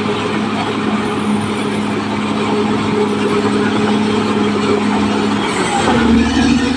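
Caterpillar D6R XL bulldozer's diesel engine running steadily at work. Near the end its note rises slightly and a deeper rumble comes in.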